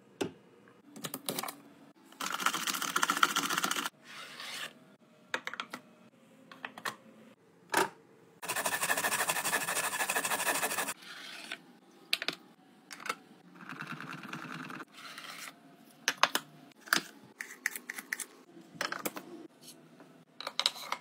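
Carrots being grated on a stainless-steel grater insert set into a bamboo cutting board, heard as two noisy stretches of a few seconds each, about two seconds in and again past eight seconds. Between them come scattered light clicks and taps of the board's containers and trays being handled.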